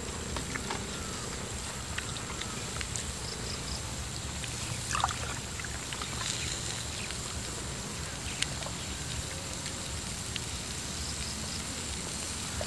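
Water poured from a plastic bottle into a drinking glass, a short rising gurgle about five seconds in, amid scattered light clicks of chopsticks on a metal grill pan, over a steady low background rumble.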